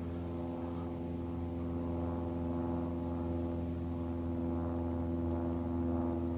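A steady low hum that holds one pitch throughout, with a low rumble beneath it.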